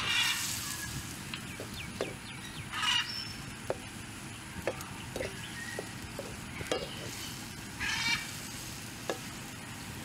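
A utensil clicks and knocks lightly against a metal wok, several times, as fish and vegetables in broth are stirred. A short, buzzy animal call sounds three times over it: at the start, about three seconds in, and about eight seconds in.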